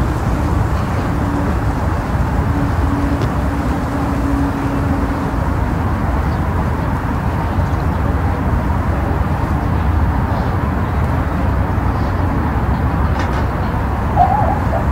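Steady road and engine noise of a moving car, heard inside the cabin, with a short wavering sound near the end.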